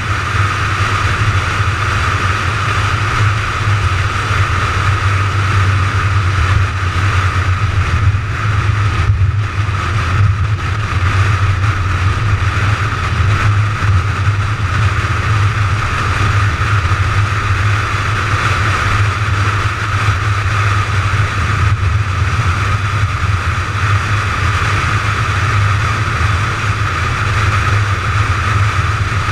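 McLaren 570GT cruising at steady highway speed: an even drone of engine, tyre and wind noise with no change in pace.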